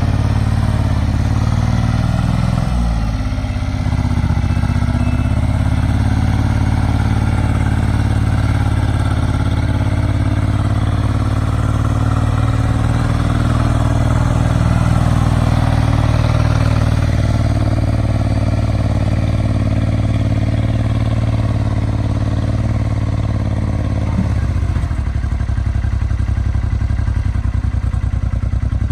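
Kubota L39 backhoe's diesel engine running steadily, with a brief dip in pitch about three seconds in. Near the end the engine note drops lower.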